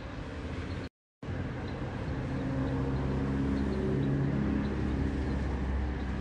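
Motor vehicle engine running with a steady low hum and hiss, as heard while travelling along a wet road. The sound cuts out completely for a moment about a second in, then comes back louder.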